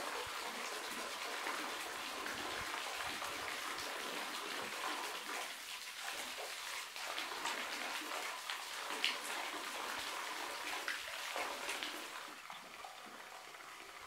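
Thin stream of water falling from a rock overhang into a small pool, a steady splashing and dripping with the sound of single drops, echoing off the rock walls. It turns fainter about two seconds before the end.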